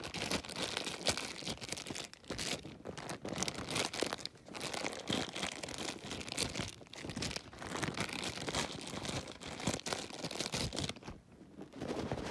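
Plastic toy wrapper crinkling and tearing as it is pulled open by hand, in a busy stream of crackles with a few short pauses.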